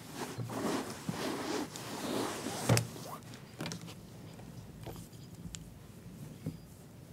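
Rustling and handling noises through the first few seconds, with one sharp click a little under three seconds in, then a few faint ticks.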